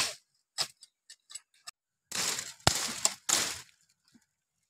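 Dry twigs and bamboo stems snapping and crackling as they are broken and cut by hand: a couple of sharp snaps, then three louder crunching bursts near the middle with one sharp crack among them.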